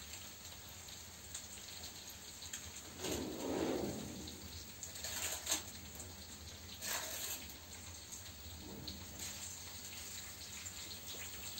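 A baking tray of food being taken out of the oven and handled: a faint steady hiss, a scraping rustle about three seconds in, and a few sharp clinks of the metal tray.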